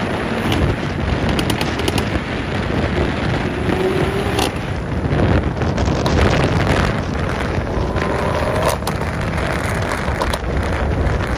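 Tuned 2020 BMW M340i's turbocharged straight-six, with an AWE Track exhaust and aftermarket downpipe, driving under load. Sharp exhaust pops and crackles go off at uneven intervals over a heavy rumble of wind noise, and the engine note rises briefly twice.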